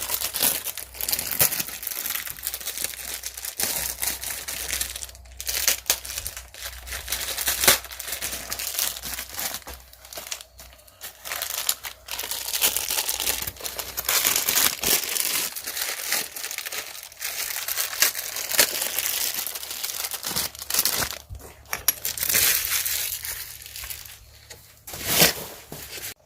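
Unboxing packaging being handled, crinkling and crumpling in a dense, irregular run of rustles.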